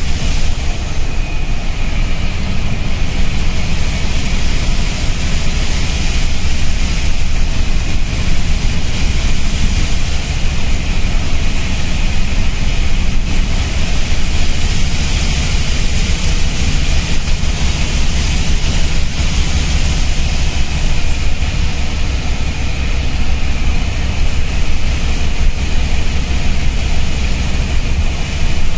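Inside an East Lancs Esteem-bodied Scania N230UB bus under way: the rear-mounted five-cylinder diesel and road noise give a steady low drone, with a loud air leak hissing constantly over it.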